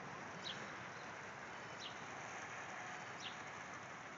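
Faint, steady hiss of a garden hose spraying, with a bird's short high chirp repeated about every second and a half.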